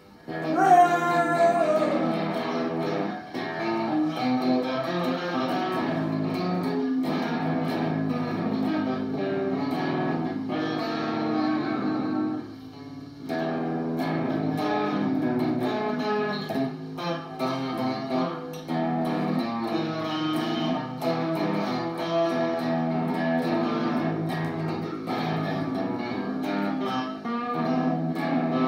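Electric guitar played solo as a continuous line of single notes, opening with a downward pitch slide. The playing breaks off briefly about twelve seconds in.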